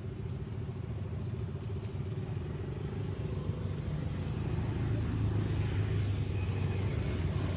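A motor vehicle's engine running, a low steady hum that grows louder about halfway through.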